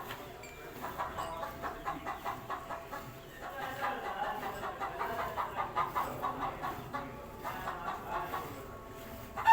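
Hand milking: milk squirting into a bucket in rhythmic jets, about three strokes a second.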